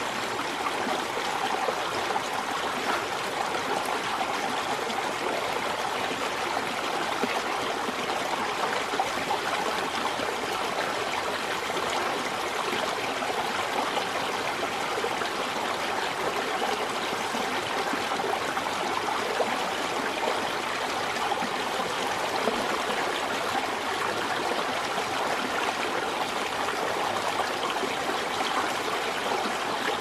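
A small rocky forest stream flowing steadily over stones.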